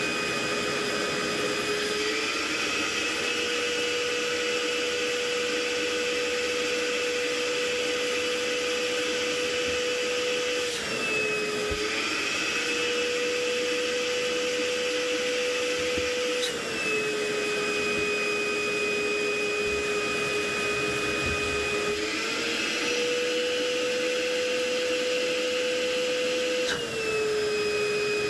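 Corded wet-and-dry shop vacuum's motor running at full suction while its pressure at the hose end is measured. The steady whine steps up and drops back in pitch several times, about every five seconds, as the airflow through the hose changes.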